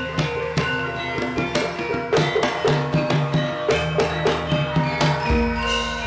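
Gamelan music accompanying a ketoprak stage play: hand-drum (kendang) strokes over a steady run of struck, ringing metallophone notes. A deep low note lands about five seconds in and rings on.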